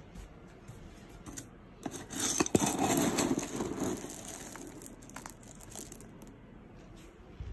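Dry cat kibble being scooped out of a plastic tub with a plastic scoop: pellets rustling and rattling, loudest about two to four seconds in, then quieter handling.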